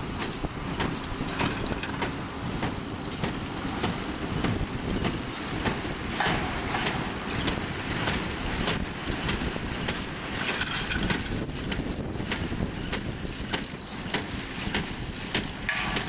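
Horse-drawn inline small-square hay baler and Norden Mfg 1534 hay accumulator working in the field: a steady mechanical rumble with irregular clanks and clicks as bales are pressed and carried up into the accumulator.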